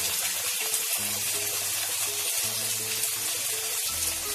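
Onions, peas and carrots frying in oil in a kadhai: a steady sizzling hiss, with soft background music underneath.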